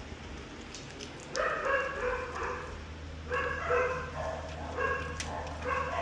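A dog barking: about four drawn-out barks, starting about a second and a half in.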